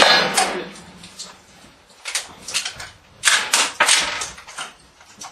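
A loud sharp bang right at the start that rings away over about a second, then bursts of quick metallic clicking and rattling from a Lee-Enfield rifle and its cartridges being handled.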